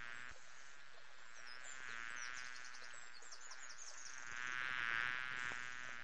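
Honeybee buzzing: a steady, high buzz that swells twice, about two seconds in and more strongly about five seconds in.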